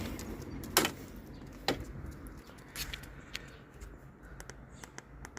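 Scattered sharp clicks and knocks, the two loudest about one and two seconds in, over a low steady hum.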